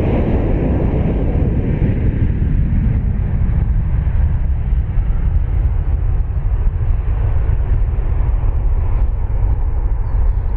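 Airbus A320-200 jet engines after take-off, heard as the airliner climbs away. The roar dulls over the first few seconds to a steady low rumble.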